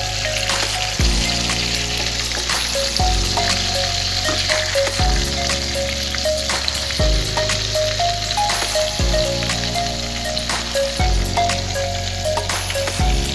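Flour-coated chicken pieces deep-frying in a pan of hot oil, a steady sizzle throughout. Background music runs underneath, with a melody and a bass line that changes note about every two seconds.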